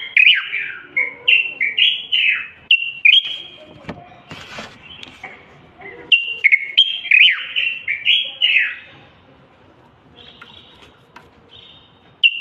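Common bulbul singing: bursts of short, rich whistled phrases, many notes sliding down in pitch, with a lull near the end before a new phrase starts.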